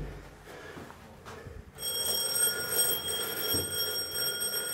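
A steady, high electronic ringing tone made of several pitches starts suddenly about two seconds in and holds without a break.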